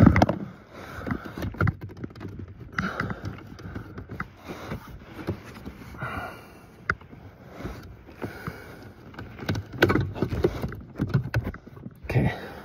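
Irregular clicks, knocks and scraping of a screwdriver and plastic pry tool working a small sealed auxiliary battery out of its stiff plastic retaining clip, until the battery is wiggled free.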